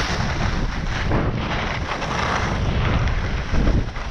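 Wind buffeting the microphone of a camera on a skier moving downhill, with skis hissing and scraping over hard-packed snow in surges as the skier turns.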